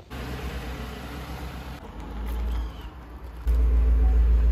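Chevrolet Silverado pickup truck engine idling, a steady low rumble that comes in loud about three and a half seconds in. Before it there is a quieter rumble with a few light knocks.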